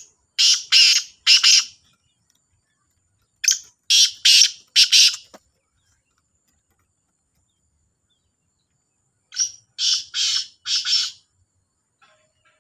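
Black francolin calling: three loud phrases of three or four notes each, a few seconds apart.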